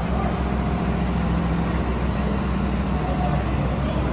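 Large diesel engine idling steadily, a low even hum.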